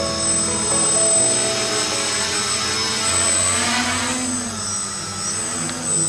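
Tricopter's three Scorpion 2208 brushless motors and propellers buzzing in flight. A rush of propeller noise swells about three and a half seconds in, then eases.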